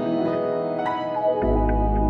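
Instrumental soul-style music: held keyboard chords with a few light ticks, and a deep bass note comes in about one and a half seconds in.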